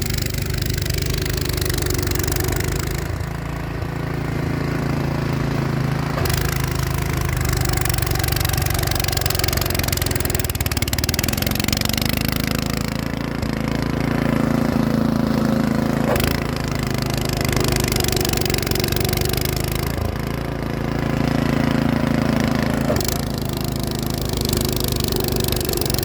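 Snow thrower engine running steadily as it clears snow, its note shifting several times as the load changes.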